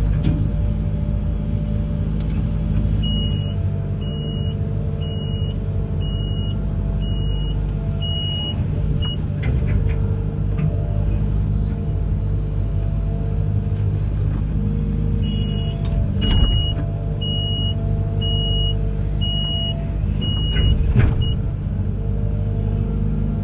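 Amphibious excavator's diesel engine running steadily under load, with its high-pitched warning alarm beeping about once a second in two runs of about seven beeps. Two sharp knocks sound in the second half.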